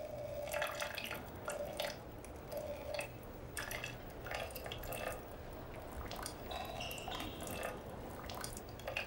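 A boy urinating into a ceramic urinal: an uneven trickle of liquid splashing and dripping.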